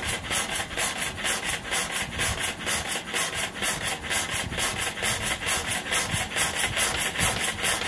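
Air-operated double-diaphragm pump on a gel coat spray machine running on about 3 bar of air, cycling in a fast, even rhythm of pulses as it primes, pumping fluid through to fill the vessel and lines.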